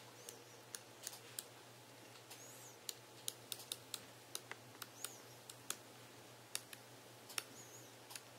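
Samsung Galaxy Note's S Pen stylus tapping and sliding on the phone's glass screen while handwriting: a string of light, sharp, irregular clicks as the hard nib touches down for each stroke, with a few faint squeaky glides of the tip along the glass.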